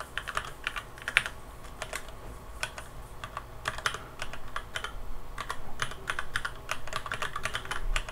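Typing on a computer keyboard: quick runs of keystroke clicks with short pauses between them.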